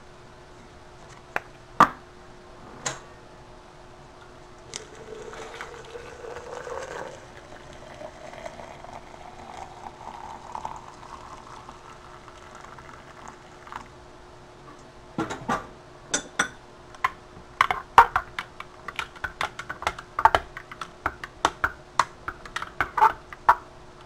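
Hot water poured into a glass French press over coffee grounds, the pitch of the filling rising steadily over several seconds. Then a spoon stirs the grounds, clinking rapidly and sharply against the glass.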